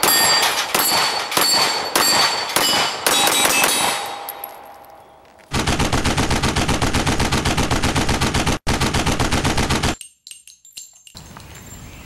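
A handgun fired in quick succession at steel plate targets, the steel ringing after each shot, the ringing fading away. Then a loud, evenly pulsing intro sound effect for about four seconds that cuts off suddenly.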